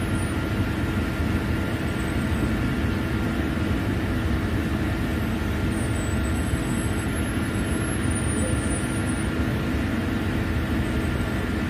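Steady drone of drilling-rig machinery on the rig floor: a constant low hum with a couple of faint steady whines above it.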